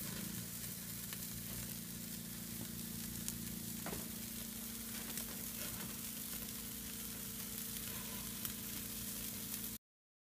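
Hamburger patties sizzling on a grate over glowing charcoal: a steady hiss with a few faint crackles. The sound cuts off abruptly near the end.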